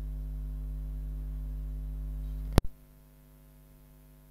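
Steady electrical mains hum with a ladder of overtones from the recording chain. About two-thirds of the way through, a sharp click cuts it down to a much fainter hum, and a second sharp click comes at the very end.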